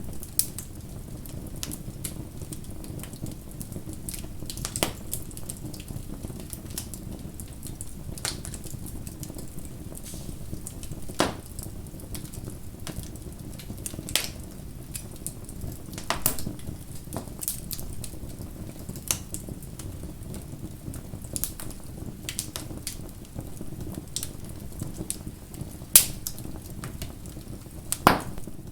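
Bonfire burning with a steady low rumble and irregular sharp crackles and pops of the wood, two of them much louder near the end.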